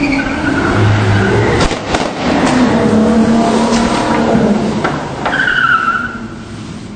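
A Porsche SUV's engine revving while its tyres skid and squeal on wet cobbles, with a few sharp knocks; a loud high squeal comes about five seconds in.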